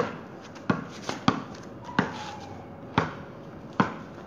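Basketball dribbled on concrete: about seven sharp bounces at an uneven pace, some coming in quick pairs.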